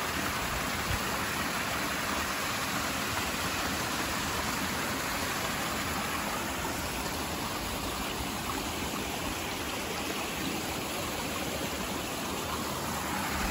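Stream water rushing steadily over rocks, with a small waterfall splashing into a rock pool.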